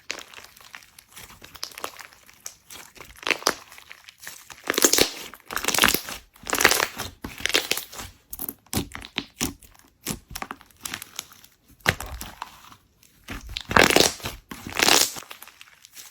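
Slime being squeezed and stretched by hand: irregular crackling and popping clicks, with louder crackly swells several times.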